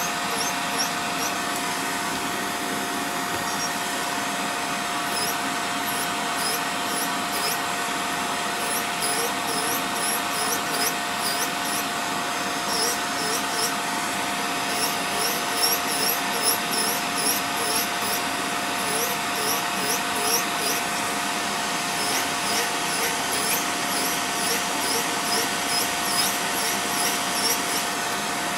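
Electric nail drill running at a steady speed with a constant whine, its burr grinding down a toenail thickened by fungal infection. Many short high chirps repeat over the whine from about five seconds in.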